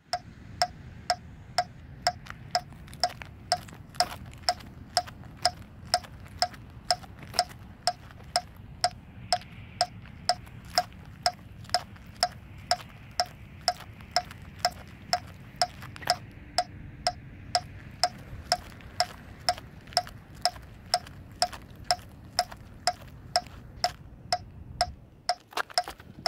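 Metronome clicking steadily at about two and a half beats a second, keeping marching tempo, over a low rumble of background noise that fades out near the end.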